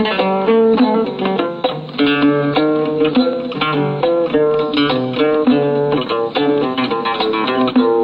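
Oud playing a quick run of plucked melodic notes: the instrumental introduction before the song's vocal enters.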